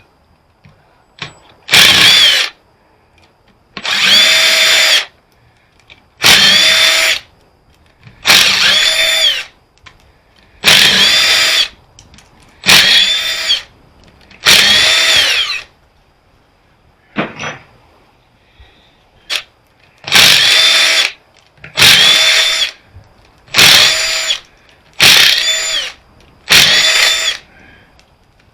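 Power driver running in short bursts of about a second, roughly a dozen times, each spinning up and slowing down as it backs out bolts from a welder's casing.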